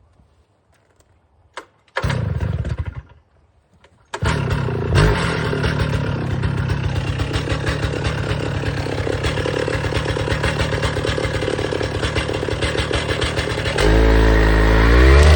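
Alpine Magnum stump grinder's gas engine being started: a first try runs for about a second and dies, the second catches about four seconds in and settles into a steady run. Near the end it revs up, its pitch rising as it is brought up to working RPM.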